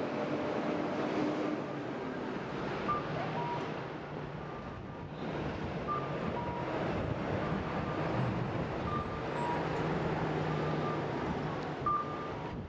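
Street traffic noise with a repeating electronic signal: a short high beep followed by a slightly lower one, the pair coming back about every three seconds.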